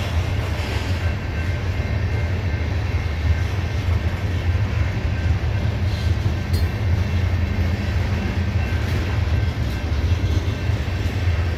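Coal hopper cars of a CSX freight train rolling steadily past, a continuous low rumble of wheels on the rails.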